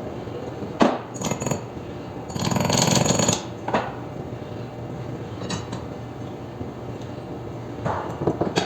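Metal tools and parts being handled during mechanical repair work: a sharp clank a little under a second in, some clattering, a rattling burst of about a second, then more knocks and clatter near the end, over a steady low hum.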